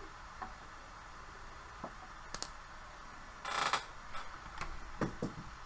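A few scattered computer mouse clicks, with a short rustle about three and a half seconds in, over a faint steady room hum.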